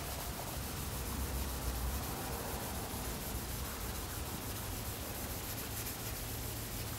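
3000-grit wet sandpaper on a hand sanding block, rubbed in small jitterbug strokes with light pressure over automotive paint to finish a test spot: a faint, steady rubbing hiss.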